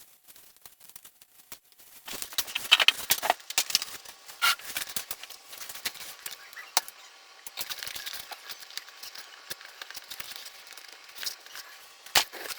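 Hands working on the parts of a foam RC model airplane during assembly: a busy run of clicking, rustling and scratchy handling noise, with a few sharper snaps, starting about two seconds in.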